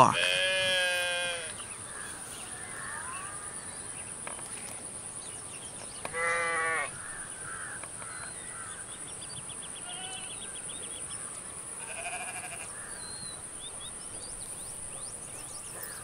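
Sheep bleating: a long wavering bleat at the start and a shorter one about six seconds in.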